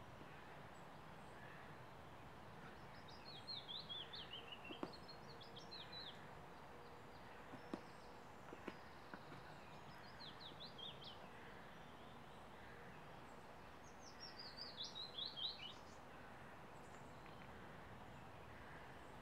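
Songbird singing three short phrases, each a quick run of notes falling in pitch, over a faint steady outdoor hiss. A few faint clicks sound around the middle.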